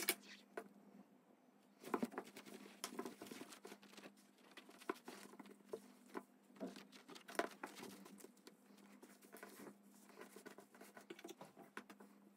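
Fingers handling a wooden embroidery hoop and sequined fabric: irregular light scratching, rustling and small taps, over a faint steady low hum.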